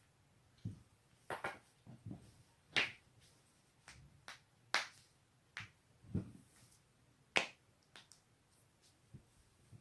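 Joints being cracked: a string of about a dozen sharp pops and cracks at uneven intervals, some with a dull thump beneath them.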